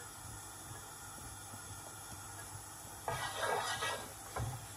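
Cooking oil poured into a pot: a short pouring splash about a second long about three seconds in, followed by a brief dull knock.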